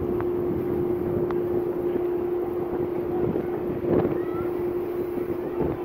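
Wind buffeting the microphone on the open deck of the cruise ship Costa Diadema under way, over a steady hum from the ship itself.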